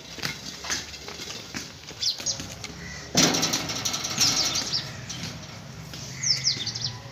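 Small birds chirping in a few quick, falling chirps, with a sudden louder rustling, clattering noise about three seconds in that lasts around a second.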